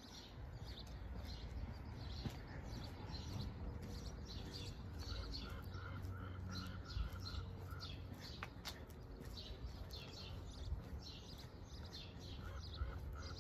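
Small birds chirping over and over, with a run of quick, evenly repeated lower notes about halfway through and again near the end, over a low background rumble.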